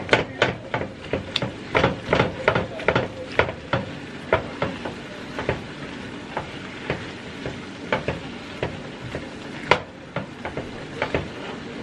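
Red plastic slotted spatula scraping and tapping against a nonstick skillet as browned ground meat is stirred, with the meat sizzling lightly underneath. The scrapes and taps come irregularly, a few each second.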